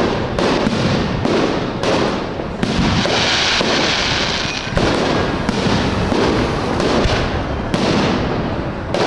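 Aerial firework shells bursting in quick succession: a string of sharp booms about once a second with crackling between them, and a denser high crackle from about three seconds in to near five seconds.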